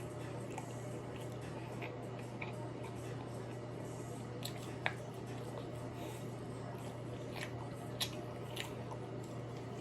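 Chewing and wet, squishy mouth sounds of someone eating seafood-boil shrimp, with scattered small clicks over a steady low hum.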